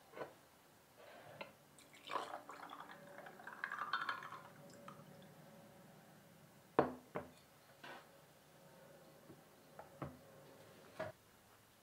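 Cold brew coffee poured from a glass bottle over ice cubes in a glass mug, liquid splashing and ice clinking for a few seconds. After the pour comes one sharp glass clink, then a few lighter taps.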